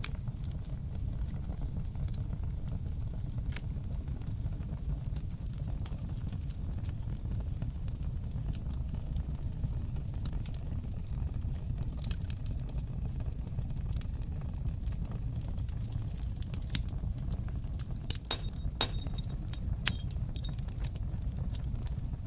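Wood fire burning in a fireplace: a steady low rumble of the flames with scattered crackles and pops, a few sharper pops bunched near the end, one louder than the rest.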